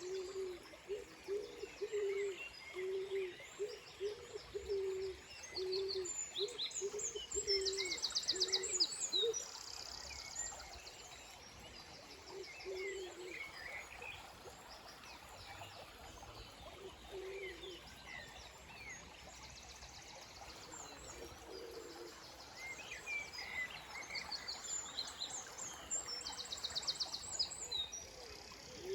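Early-morning chorus of wild birds: a series of short, low hooting calls, about two a second for the first ten seconds and then only now and again, which the uploader takes for an owl, over many songbirds' chirps and fast, high trills.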